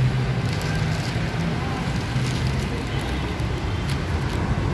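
Steady street traffic noise with a low rumble, and a few light clicks scattered through it.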